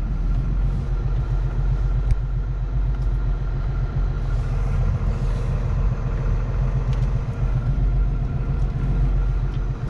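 Long-haul truck driving on the highway, heard from inside the cab: the engine drones steadily under a constant rumble of road noise.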